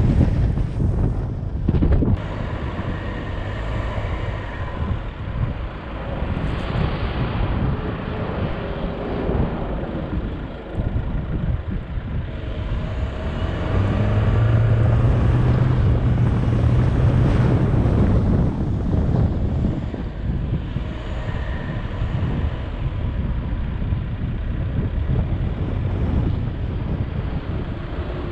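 A 4x4's engine driving across soft sand dunes, working harder for a few seconds in the middle, with wind buffeting the microphone.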